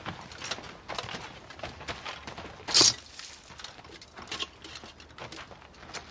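Footsteps on dry, stony ground: a scatter of irregular steps, with one louder sharp hit about three seconds in.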